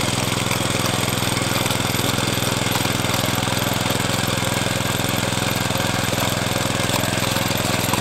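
Walk-behind rototiller's small engine running steadily while its tines work the soil.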